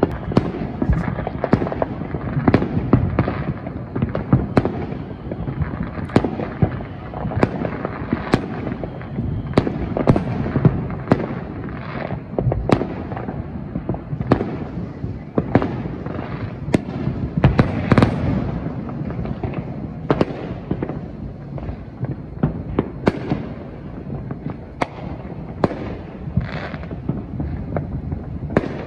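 Many aerial fireworks going off at once: an irregular run of sharp bangs and pops, several a second, over a continuous rumble.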